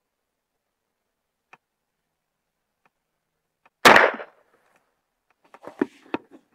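A single shot from a Hi-Point 10mm carbine in a bullpup stock, about four seconds in, with a short echo after it. A few light clicks and knocks of handling the gun follow.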